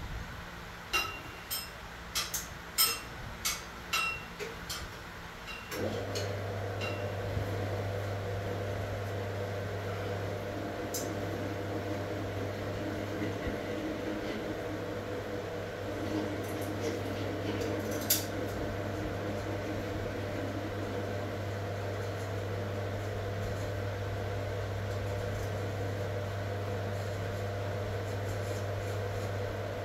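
About eight sharp metallic clinks with a short ringing tone, metal pieces knocking together, then a steady mechanical hum that starts suddenly about six seconds in and holds even, with a couple of faint clicks over it.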